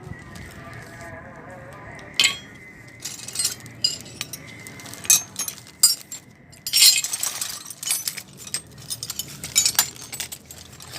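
Hard objects, likely metal tools, clinking and clattering as they are handled, in scattered sharp clinks with a denser rattle about seven seconds in.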